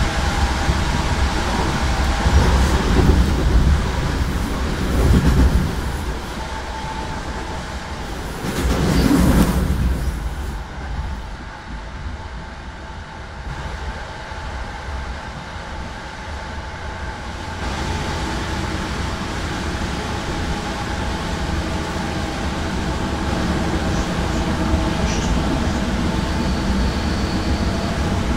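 Regional passenger train heard from inside the carriage while running: a steady low rumble of wheels on the rails. It swells briefly about nine seconds in, eases off for a few seconds, and settles into an even running noise with a steady hum of several tones for the second half.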